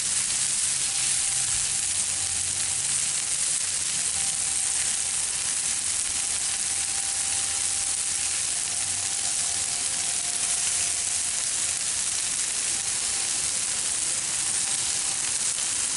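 Stir-fry of chicken, vegetables and moist noodles sizzling steadily on a hot Blackstone flat-top griddle.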